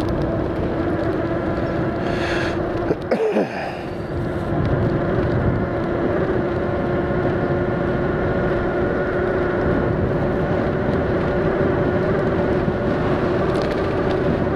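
HappyRun F18 electric bike's motor whining at a steady pitch while riding, over wind and road rumble. A brief loud buffet about three seconds in.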